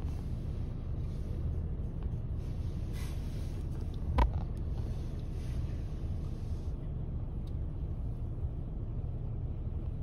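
Steady low rumble of a car driving on a snow-covered road, heard from inside the cabin. A single short thump comes about four seconds in.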